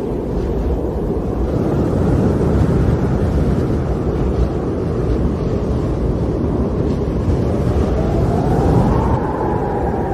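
Snowstorm wind blowing with a steady low roar, and a faint howling whistle that rises and falls near the end.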